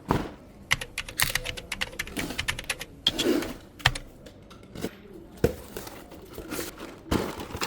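Cardboard and plastic packaging being handled: an irregular run of sharp clicks, taps and light rustling.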